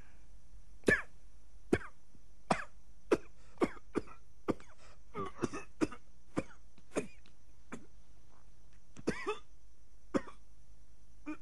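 An elderly man coughing in a long run of short, sharp coughs, about fifteen in ten seconds, the loudest about a second in.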